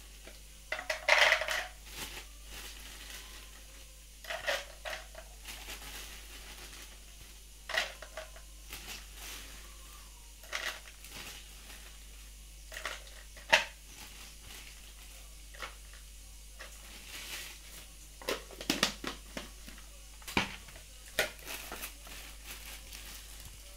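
Plastic bag crinkling and cashew nuts rattling and clicking as they are dropped by the handful into a jar, in scattered short bursts with a few sharper clicks.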